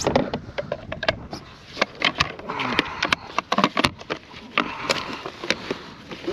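Irregular knocks, taps and rustling of a freshly caught redfish and gear being handled on a kayak.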